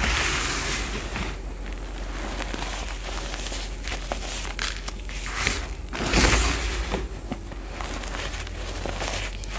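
Crushed reformed BSN gym chalk being pressed and squeezed by hands and forearms, a crunchy, crumbly sound with small crackles, swelling loudest about six seconds in.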